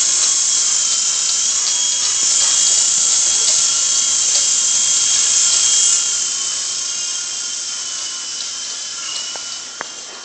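Toy RC helicopter's small electric motors and rotors whining steadily at a high pitch, fading after about six seconds.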